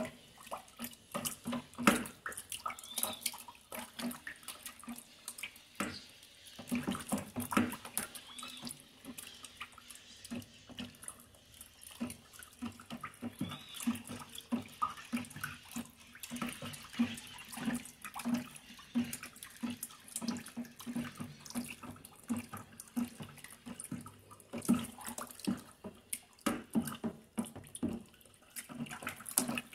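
Oil, ethanol and lye solution being stirred by hand with a long plastic stick in a plastic tub: continuous sloshing and swishing, with repeated light knocks of the stick against the tub, as the liquid-soap batch is mixed to saponify.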